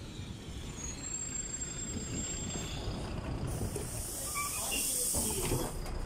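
LiAZ 5292.22 city bus standing at a stop with its engine running, a thin high whine about a second in, then a loud hiss of compressed air from its pneumatic system lasting about two seconds, around the middle.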